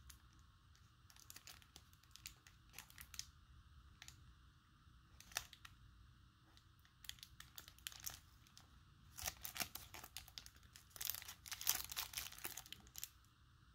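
Plastic wrapper of a 1990 Score football card pack crinkling as it is handled and flexed in the fingers: faint, scattered crackles, busiest from about nine to thirteen seconds in.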